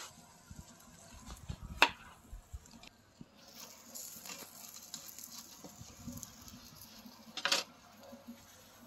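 A large kitchen knife slicing red onions into rings on a wooden tabletop: soft cutting taps, with two sharp knocks of the blade or onion on the wood, about two seconds in and near the end.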